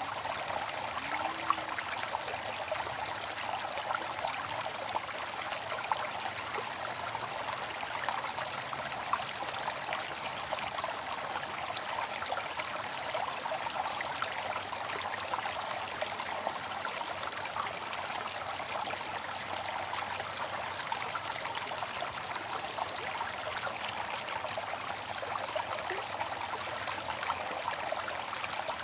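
Water fountain splashing and trickling steadily, an even watery rush with fine droplet splashes.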